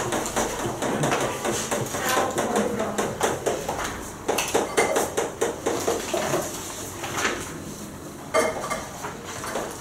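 Chalk tapping and scratching on a chalkboard while an equation is written and a line is drawn: a quick, irregular run of clicks and scrapes.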